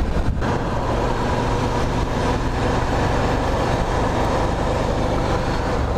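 Suzuki SV650's V-twin engine running at a steady cruising speed, heard from the moving motorcycle with wind and road noise rushing over it.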